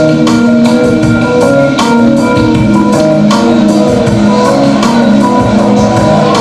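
Music playing loudly: percussion strikes over held pitched notes.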